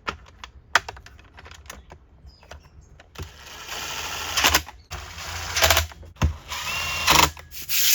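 A few clicks of parts being handled, then a cordless power driver running in four short bursts of about a second each, from about three seconds in.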